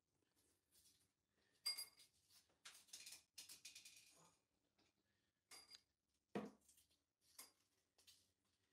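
Mentos mints dropped into a small glass cup, clicking against the glass in single clinks and a short rattle of several in a row, with a duller knock about six seconds in.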